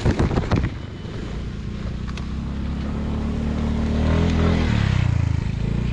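A few knocks at the start, then a motor vehicle's engine approaching and passing close by. It grows steadily louder for about four seconds, then drops away near the end as it goes past.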